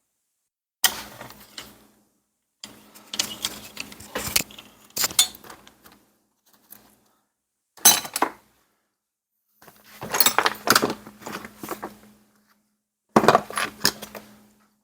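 Small metal engine parts clinking and clattering as they are handled and set down, in irregular bursts with dead silence between them.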